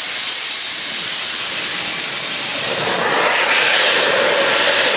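Compressed air hissing out of a homemade propane-tank air compressor's tank as it is bled down, loud and steady, then cutting off abruptly.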